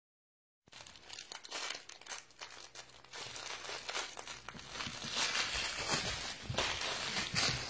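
Crinkle material inside a red plush dog toy crackling and rustling as a puppy bites, shakes and tugs it, starting under a second in as quick irregular crinkles that grow louder over the last few seconds.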